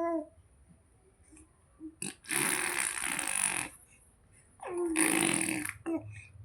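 A baby blowing raspberries: two wet, spluttering lip trills of a bit over a second each, the second starting with a short voiced sound.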